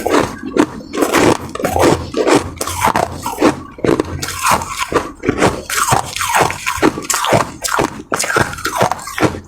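Ice being bitten and chewed close to the microphone: a fast, irregular run of crunches and cracks, several a second.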